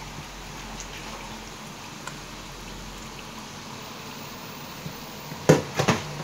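Puff-puff dough balls deep-frying in oil: a steady sizzle with scattered small pops. Near the end, a spatula in the pot makes a quick run of loud knocks and scrapes as the fried puffs are turned and lifted out.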